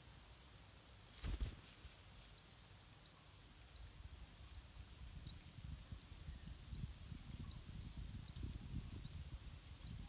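A brief rush of wingbeats about a second in as the parent yellow-vented bulbul leaves the nest, then a run of short, high, rising chirps about twice a second from the nestling begging. A low wind rumble on the microphone sits underneath.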